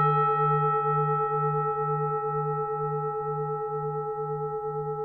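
Struck Buddhist bowl bell ringing on after a single strike, several held tones fading slowly, the lowest one pulsing about twice a second.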